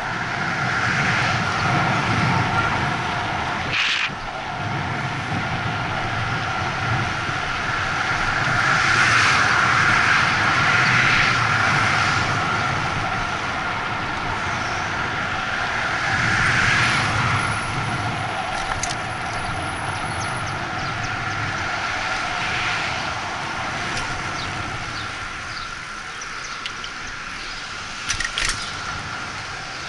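Wind rushing over the microphone and tyre noise during a bicycle ride along a city street, with motor traffic passing; the rush grows louder about nine seconds in and again around sixteen seconds. A few sharp clicks near the end.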